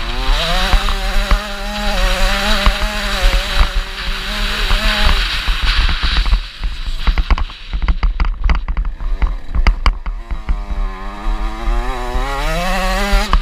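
KTM 65 two-stroke motocross bike engine held at high revs, then off the throttle for a few seconds with a run of sharp pops and clicks, before revving up again with rising pitch near the end. Wind noise from the bike-mounted camera runs under it.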